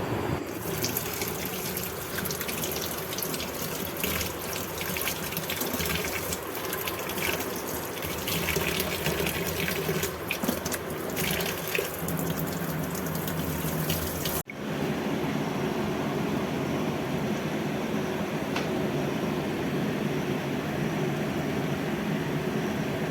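Water running from a tap into a sink and splashing, as grapes are rinsed under it. About 14 seconds in it cuts off abruptly, and a steady, duller hiss follows.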